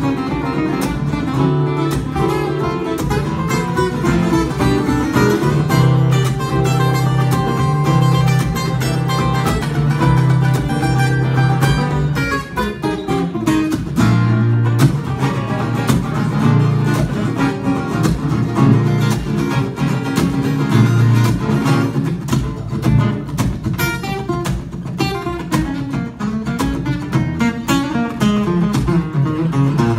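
Two steel-string acoustic guitars playing a lively instrumental duet, with a fast run of picked and strummed notes and a brief thinner passage about twelve seconds in.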